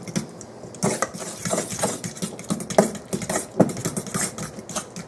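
A metal fork stirring a wet mash of bananas and melted butter in a stainless steel mixing bowl, with irregular clinks and scrapes of fork on bowl.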